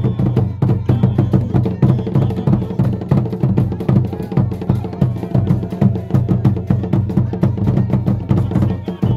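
Akan fontomfrom drum ensemble playing a fast, dense dance rhythm with deep drum strokes.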